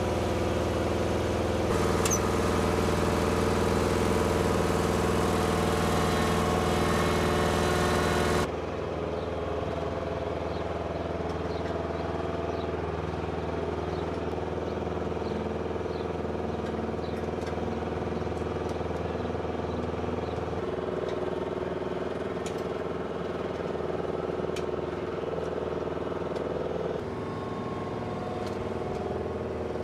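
Flight-line ground equipment engines running steadily, a bomb lift truck's engine the loudest for the first eight seconds or so. The level then drops suddenly and a quieter steady engine hum carries on, with faint metallic clicks from the loading work over it.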